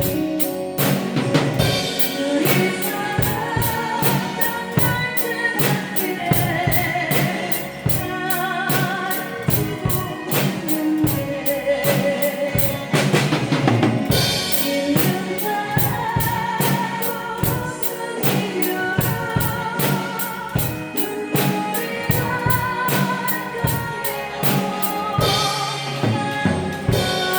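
Drum kit played along with a recorded Korean song, bass drum and snare keeping a steady beat under a woman's singing with a wavering vibrato.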